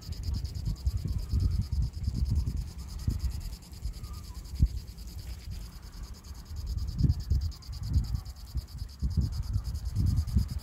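A steady high insect trill of very fast, even pulses, like crickets chirring. Under it, irregular low rumbling gusts of wind buffet the microphone.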